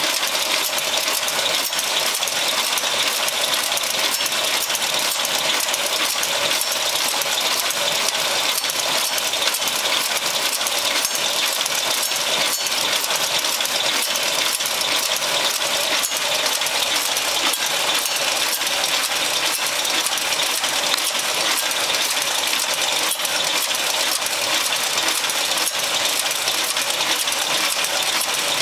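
Automatic incense-stick making machine running continuously: an even mechanical clatter of many small rapid clicks from its feed and coating mechanism.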